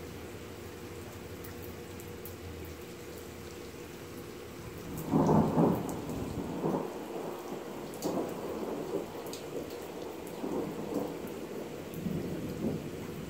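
Steady rain with scattered drop ticks, then thunder about five seconds in: one loud peal followed by several weaker rolling rumbles.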